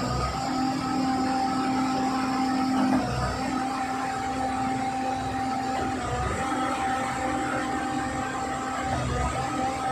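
Self-loading concrete mixer truck and concrete pump machinery running steadily: a constant engine and hydraulic whine with a low surge about every three seconds.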